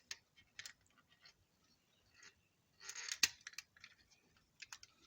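Light clicks and taps of a 1/24-scale diecast model car being handled as its opening doors are worked, with a denser, louder run of clicks about three seconds in.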